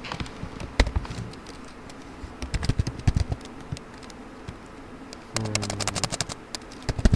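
Computer keyboard typing: irregular key clicks, in dense runs of keystrokes around three seconds in and again from about five and a half seconds, with a sharp keystroke just before the end.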